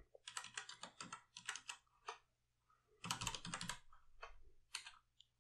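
Faint typing on a computer keyboard: a quick run of keystrokes through the first two seconds, another flurry about three seconds in, then a few single taps.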